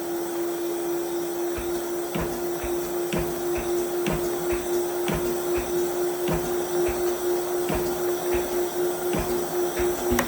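Moore No. 2 jig grinder running: a steady hum with a string of irregular clicks and ticks, and a loudness that rises and falls evenly in the later part as the grinding head strokes under its auto feed.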